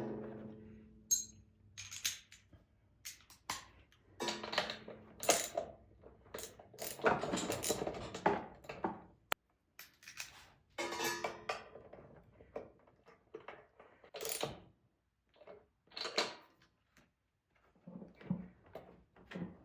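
Intermittent metallic clinks, clicks and short scrapes of hand tools and parts being handled during a lawn mower spark plug change, with a longer stretch of scraping and rattling near the middle.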